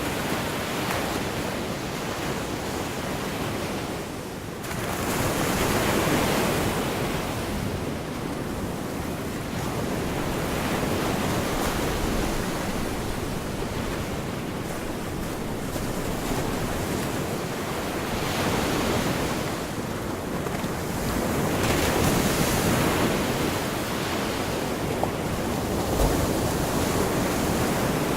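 Gulf of Mexico surf washing onto the beach, swelling and falling back every few seconds, with wind buffeting the microphone.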